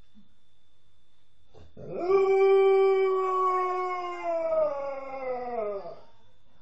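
Alaskan Malamute howling: one long howl that starts about two seconds in, holds a steady pitch, then falls in pitch as it fades out.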